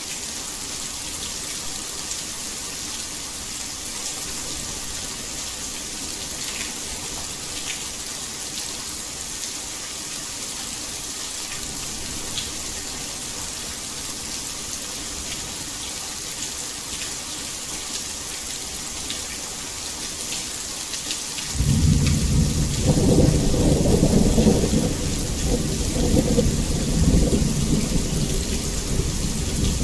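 Heavy rain falling in a steady hiss with fine patters of drops. About two-thirds of the way through, a roll of thunder comes in suddenly and rumbles on, louder than the rain.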